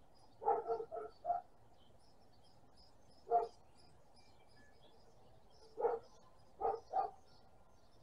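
A dog barking in short barks: four in quick succession, two single barks, then a pair near the end. Faint high bird chirps run underneath.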